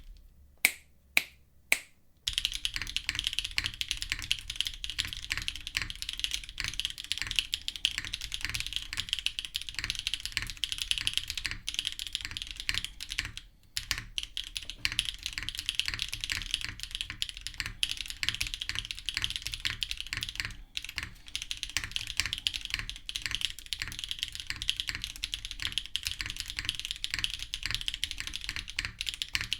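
Typing sound test on the Nuon Odyssey, a custom TKL mechanical keyboard with a bottom-mounted plate and GMK ABS keycaps. A few single key presses open it, then fast continuous typing follows, with one short break about halfway.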